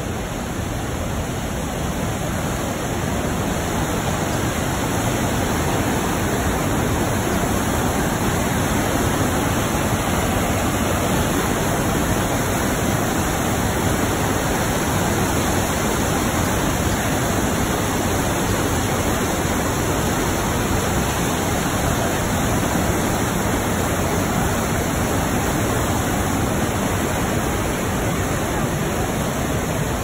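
Steady rush of whitewater pouring over the wide, low ledge of the Manavgat River waterfall, heard close up, growing a little louder over the first few seconds.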